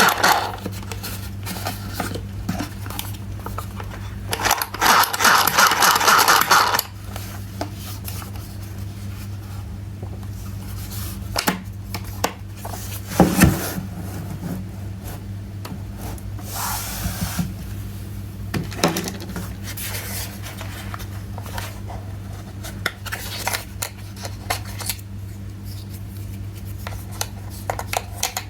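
Hands unpacking and handling a plastic toy kitchen set: rubbing, scraping and scattered clicks of plastic parts and packaging, with a louder rustling spell a few seconds in and a single knock about halfway through. A steady low hum lies underneath.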